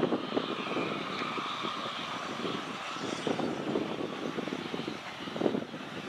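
Garratt steam locomotive NG.130 working under load: a fast, uneven beat of exhaust chuffs over a steady hiss of steam, with louder surges now and then.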